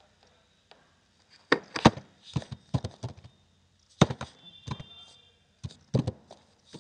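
Computer keyboard typing: irregular clusters of sharp key clicks with short pauses between them, starting about a second and a half in.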